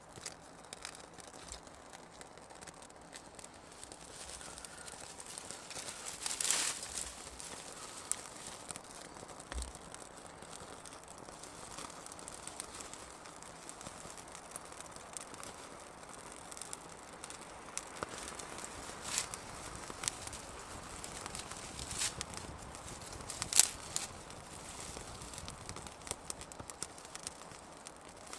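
Small fire catching in dry twigs and tinder: scattered sharp crackles and snaps, with rustling of dry twigs being handled and laid onto the flames.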